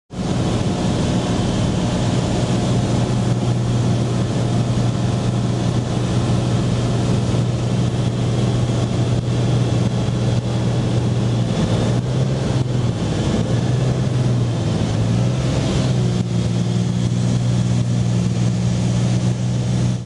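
Cessna 206 single-engine plane heard from inside the cabin: the six-cylinder piston engine and propeller drone steadily. The pitch wavers and dips for a few seconds after the middle, then settles again.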